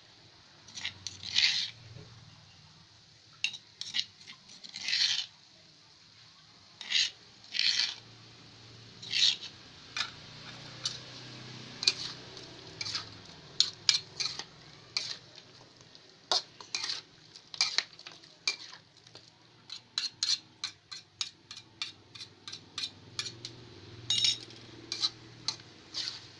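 Metal spoon scraping and clinking against a thin metal wok as chicken pieces and chilli paste are stirred, in irregular strokes that come quicker and closer together in the second half.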